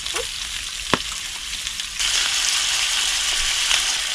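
Chopped octopus sizzling in olive oil in the takoyaki plate of a BRUNO electric hot plate, a steady frying hiss that grows louder about halfway through. A single sharp tick about a second in.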